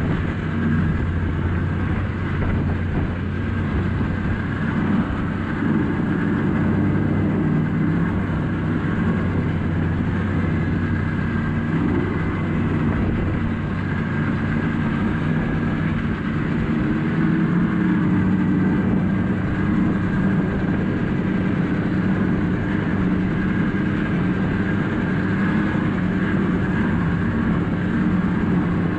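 Yamaha four-stroke snowmobile engine running steadily while riding a trail, heard from the rider's seat; the engine note rises a little about seventeen seconds in.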